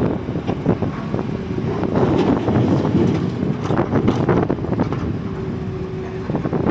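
Hydraulic excavator working: its diesel engine running under load amid repeated knocks and clatter. A short steady whine sounds about five seconds in.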